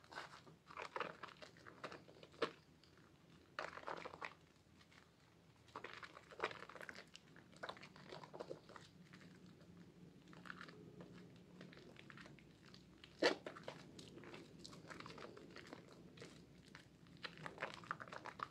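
Hands squeezing a lather-soaked sponge in thick soap foam: wet squelching and crackling of bubbles in irregular squeezes, with one sharper squelch about two-thirds of the way through.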